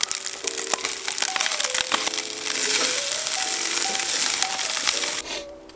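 Fried rice sizzling in a stainless steel frying pan on a camp stove, with a spatula scraping and tapping the pan. Light background music runs underneath. The sizzle cuts off suddenly about five seconds in.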